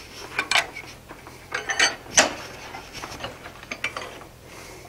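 Scattered metal clanks and clinks as blacksmith's tongs and a post vise are handled to grip a hot punch held in the vise, about eight separate strikes with a short metallic ring, the loudest about two seconds in.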